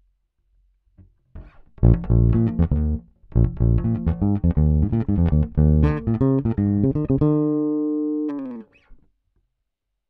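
Yamaha RBX270J electric bass played fingerstyle: a quick run of plucked notes with a short break partway through, ending on a held note that rings for about a second before it is cut off.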